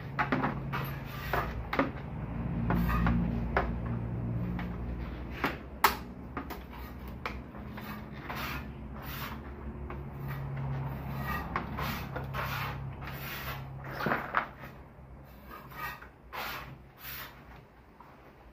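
Irregular clicks, taps and scraping from hands working wire into a flush-mounted electrical box. A low hum underneath swells in the first half and fades out near the end.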